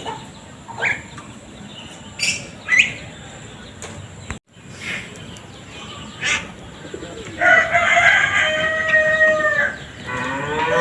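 A rooster crowing once, a long call of about two seconds past the middle, after a few short rising bird chirps earlier on. Another long animal call begins near the end.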